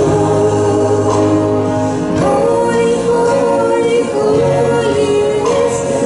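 A woman singing a hymn solo into a handheld microphone over an instrumental accompaniment, with long held notes and a low bass line that changes about every two seconds.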